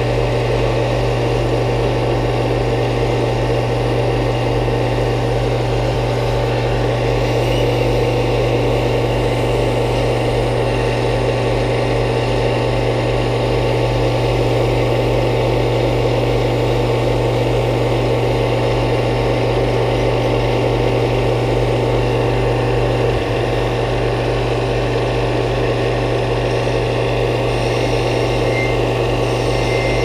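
Small wood lathe running steadily at constant speed, its motor humming as it spins a pen blank on a mandrel during finishing.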